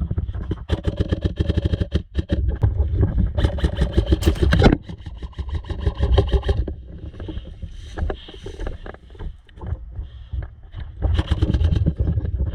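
Airsoft electric rifle firing several bursts of rapid shots at about ten a second. There is a gap of a few seconds before the last burst.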